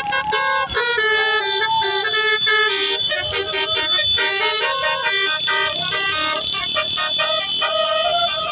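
Indonesian 'telolet' bus horn playing a melody: several horn tones sound together and jump from pitch to pitch in quick steps.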